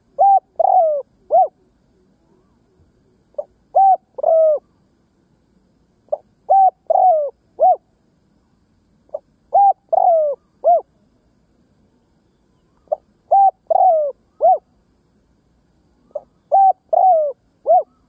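Spotted dove (cu gáy) singing its territorial coo song: a short lead note followed by three or four low coos, the phrase repeated about every three seconds, six times. This is a decoy male's call used to provoke wild spotted doves to answer and come in.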